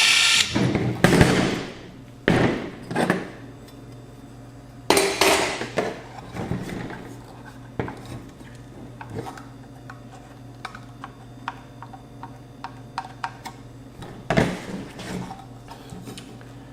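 Metal clatter and knocks of a car amplifier's casing, screws and hand tools being handled during disassembly, loudest in the first few seconds and again about fourteen seconds in, with small ticks and clinks in between.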